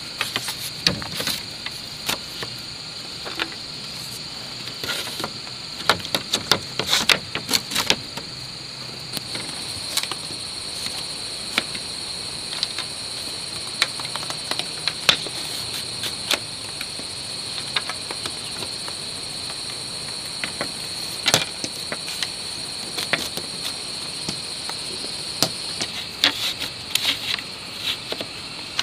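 Split bamboo strips clacking and rattling against each other and against bamboo poles as they are woven by hand into a lattice panel, in irregular clusters of sharp clicks, busiest a few seconds in and again near the end. Under it, a steady high-pitched insect drone.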